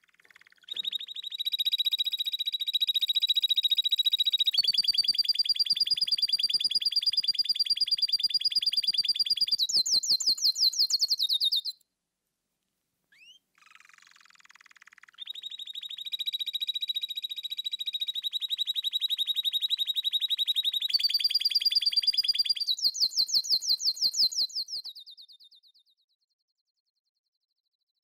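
Canary singing two long songs of fast rolling trills, each made of very rapid repeated notes held for several seconds before stepping to a new pitch. The first song stops about 12 seconds in. After a short pause, the second starts about 15 seconds in and fades out near 26 seconds.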